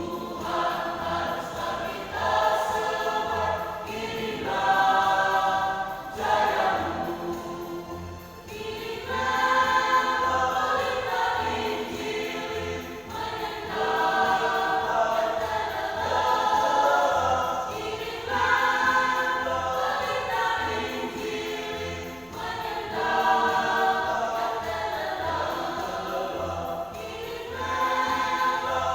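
Singing voices carrying a melody in held notes, with a steady low beat underneath.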